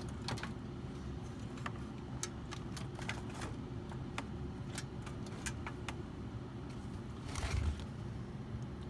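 Scattered light clicks and small metallic rattles from handling parts and wiring inside an open furnace cabinet, over a steady low hum, with a brief scraping rustle about seven and a half seconds in.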